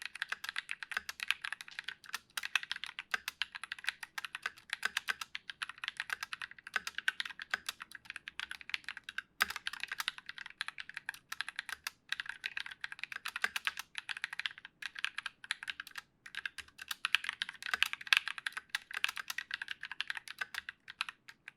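Fast, continuous typing on a Massdrop ALT mechanical keyboard with lubed Drop Holy Panda tactile switches, GMK keycaps and unlubed stock plate-mount stabilizers. It is a dense stream of keystroke clacks with short pauses now and then, and it stops just before the end.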